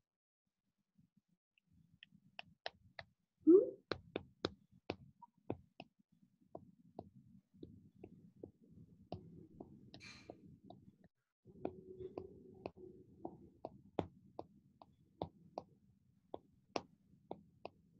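Scattered faint clicks and taps at irregular intervals over a low background hum, heard through a video-call connection, with one louder short sound about three and a half seconds in.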